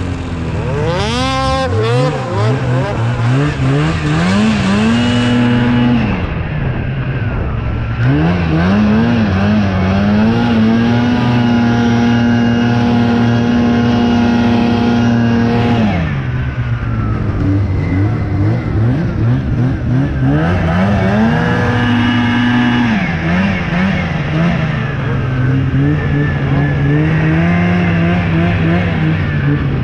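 Snowmobile engine, the Ski-Doo Summit's turbocharged two-stroke 850, under hard throttle. The revs climb and hold high for several seconds, drop back, then climb again, about three runs in all.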